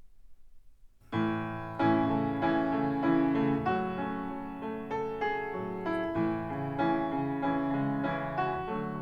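Music played over Harbeth SHL5+ 40th Anniversary loudspeakers driven by a March Audio P252 class D amplifier, picked up in the room by a microphone: piano notes start about a second in, after a faint low hum.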